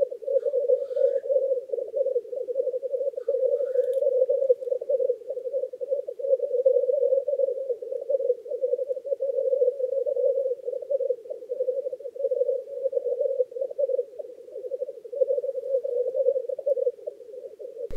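Male black grouse bubbling on a lek: a continuous chorus of low rolling coos from several birds. A few faint, brief higher calls come in during the first few seconds.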